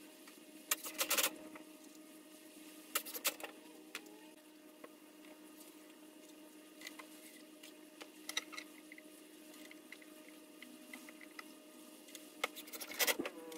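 A few short bursts of a cordless drill driving screws into wooden floorboards, with knocks and clatter of the boards being handled, over a steady low hum.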